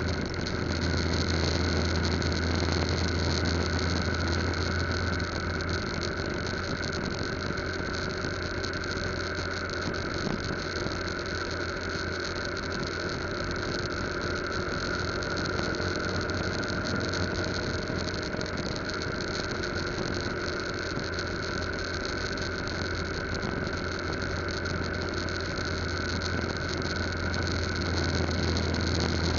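Yamaha Lagenda 115Z underbone's single-cylinder four-stroke engine running steadily at highway cruising speed, under a constant rush of wind and road noise.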